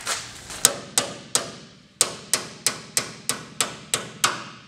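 A small hammer tapping on the sheet-steel firewall and floor pan of a 1957 Chevy Bel Air body, to bring the firewall into line with the new floor pan at a tweaked spot. Sharp, ringing metal strikes: three, a brief pause, then a steady run of about three a second.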